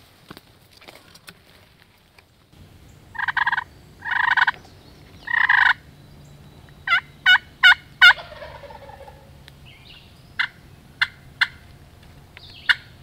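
Wild turkey gobbling and calling: three loud calls about a second apart, then four quick pitched notes, then several short sharp notes near the end.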